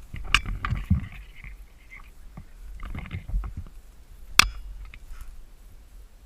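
Rustling and soft knocks close to the camera, with one sharp, loud click about four and a half seconds in.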